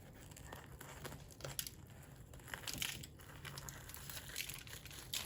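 A person eating: faint crackly chewing and mouth noises with scattered small clicks.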